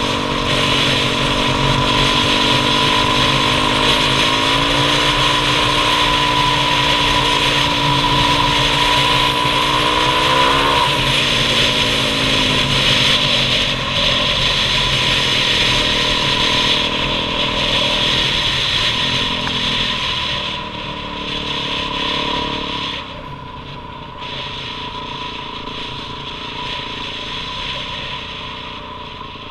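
Dirt bike engine running under way over rushing wind and road noise. The engine note climbs and rises sharply about ten seconds in, then falls away. Later the bike slows and the sound eases down.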